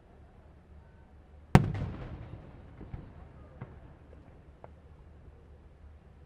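A single loud aerial firework shell bursting about a second and a half in, its bang echoing away over about a second, followed by a few faint distant pops.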